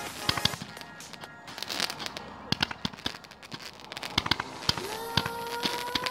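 Fireworks going off: a quick run of sharp bangs and crackles from rockets bursting, with music playing underneath. Near the end a steady held tone comes in over them.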